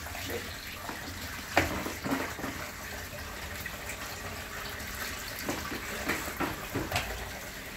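Water running steadily from a kitchen tap, with a few light knocks: one about one and a half seconds in and several more near the end.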